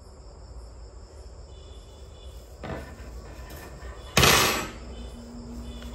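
Stainless-steel air-fryer racks and trays being handled: a light knock about two and a half seconds in, then a louder metal clatter just after four seconds that rings off over about half a second.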